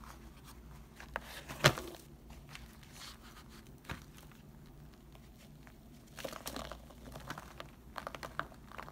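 A packed block of Foca laundry detergent powder and baking soda breaking under a hand: one sharp crack a little under two seconds in, a few small cracks, then crumbly crunching as a handful of the powder is squeezed and crumbled near the end.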